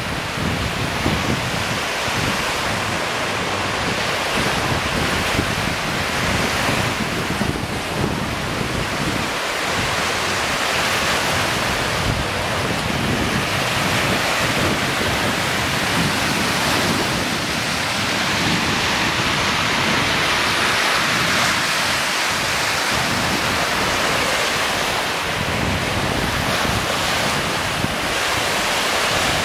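Small freshwater waves on Lake Michigan breaking and washing up a sandy beach in a steady wash of surf, with wind buffeting the microphone in a low fluttering rumble.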